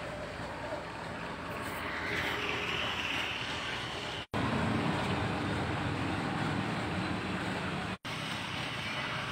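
Steady background noise, an even rumble and hiss without voices, cut off abruptly twice for a split second, about four and eight seconds in.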